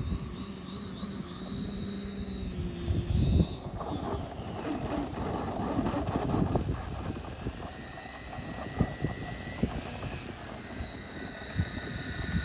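Electric motor and 24x10 three-blade propeller of a giant-scale RC aerobatic plane in flight, a steady tone with a wavering high whine that stops about three and a half seconds in with a sharp knock. After that, gusty wind noise on the microphone, with a faint high motor whine in the second half.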